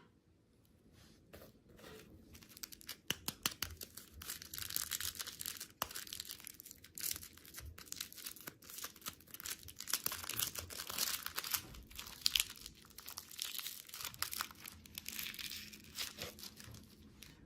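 Candy packaging being torn open and crinkled by hand: a dense, irregular crackle of rustling and ripping that starts about a second and a half in and stops just before the end.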